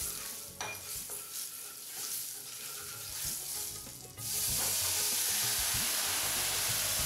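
Spice tempering of mustard seeds, cumin, coriander powder and chilli powder sizzling lightly in hot oil while a spatula stirs and scrapes it around a nonstick kadai. About four seconds in, the boiled whole brown lentils and their cooking water are poured into the hot oil, and a loud, steady sizzle suddenly takes over.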